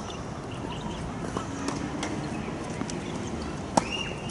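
Steady outdoor ambience at a tennis court, with a few faint knocks and one sharp knock near the end, followed by a brief high squeak.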